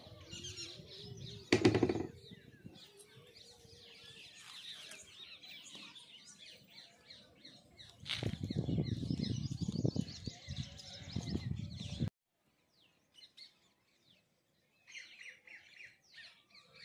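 Small birds chirping and calling, with gusts of wind rumbling on the microphone about two seconds in and again from about eight to twelve seconds. The sound cuts out abruptly about twelve seconds in, and the chirping returns near the end.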